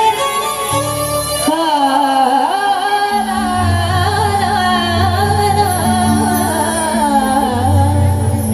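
Indian devotional bhajan music: a sliding, ornamented melody line over sustained low bass notes.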